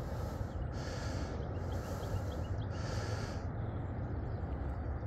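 A man breathing hard through his nose close to the microphone: three loud breaths about a second apart, then quieter. A steady low rumble runs underneath.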